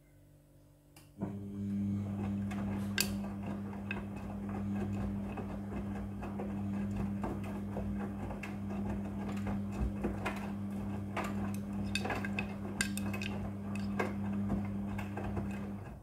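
Front-loading washing machine, a Midea, turning its drum with a wet load during the wash: the motor hum starts about a second in and stops near the end, with many light clinks and knocks as the clothes tumble against the drum.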